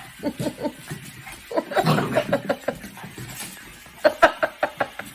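A person laughing in three bursts of quick, rhythmic chuckles, about five pulses a second.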